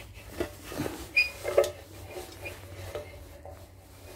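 Metal clinking and knocking as a homemade Allen key, welded from two bolts, is worked in the fitting of a metal shower head. The knocks come irregularly, and a couple of them about a second in leave the metal ringing briefly.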